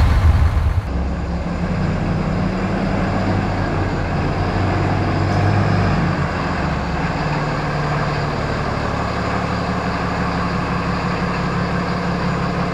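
RAM 2500's Cummins diesel engine running steadily, a low hum whose note shifts about six seconds in.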